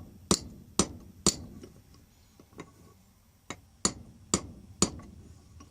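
Hammer tapping a spring pin further into the cross-hole of a bench vise's lead screw, where the pin still stands proud and jams the handle. Three sharp metal strikes about half a second apart, a pause with a couple of light taps, then four more strikes.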